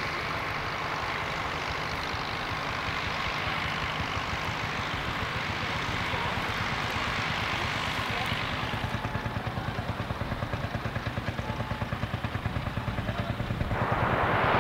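Fordson Super Dexta tractor's three-cylinder diesel engine running steadily with a low, even throb. Near the end a rising rushing noise swells up over it.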